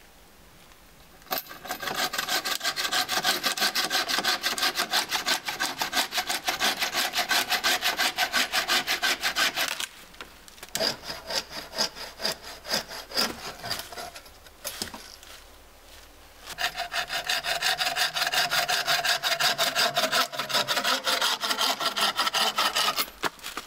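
Wooden-framed bow saw cutting through dead tree branches with fast, even push-pull strokes. There are two long bouts of steady sawing, with a quieter, broken-up stretch of lighter cutting between them.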